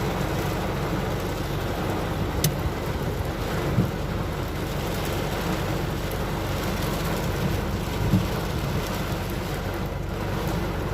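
Severe rainstorm: heavy rain and strong wind making a steady, dense rush of noise, with a few brief sharp knocks.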